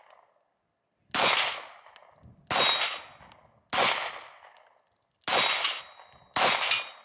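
Five single pistol shots fired at a slow, even pace, about one every second and a quarter, each echoing off the range. After two of them comes a short ringing tone, as from a hit steel plate target.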